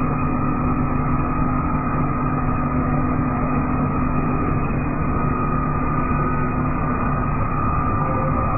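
Plastic sheet production line running: a steady machine hum with constant tones that does not change.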